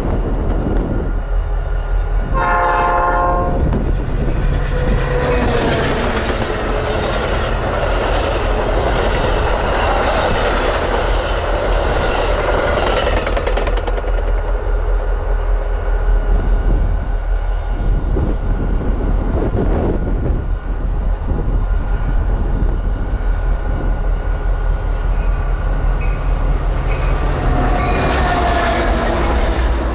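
A train horn sounds one short blast a few seconds in, then a Metra commuter train rumbles past on its wheels, with a squeal of wheels near the end. Under it all runs the steady low hum of an idling diesel freight locomotive.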